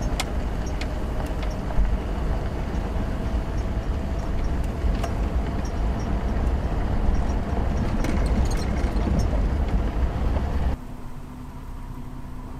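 Car driving on a gravel road, heard from inside the cabin: a steady tyre and road rumble with scattered sharp ticks of gravel against the body. Near the end it cuts suddenly to a quieter steady background noise.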